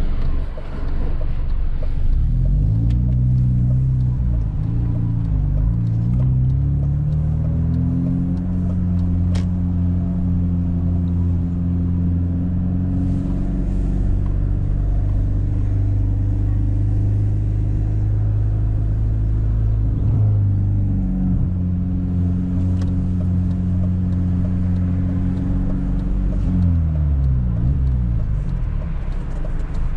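Tuned BMW E46 320i's straight-six with a loud exhaust, heard from a car being driven. The engine note rises and falls several times early on, then holds steady at a constant speed. It dips briefly a little past the middle, holds again, and drops away near the end.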